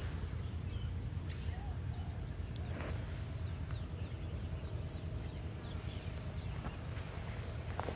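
A bird calling a quick run of short, high, falling chirps, about three a second, for a few seconds in the middle, over a steady low rumble.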